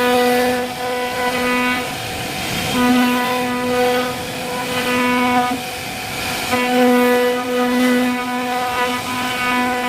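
Syfing CNC router carving wood: the spindle whines at one steady pitch over the hiss of the bit cutting. The whine drops out briefly twice, about two and six seconds in, while the cutting noise carries on.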